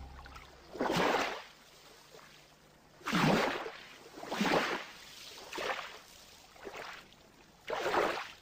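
Small waves washing onto a pebble beach: about six separate washes, each swelling and fading over roughly a second, one every second or two.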